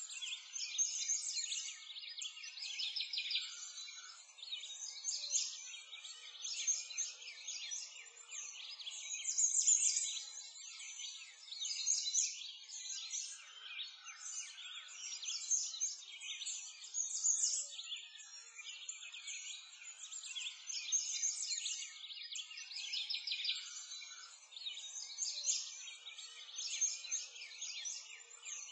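A dense chorus of small birds chirping and twittering, busy high calls that swell and ease every couple of seconds, with nothing low beneath them.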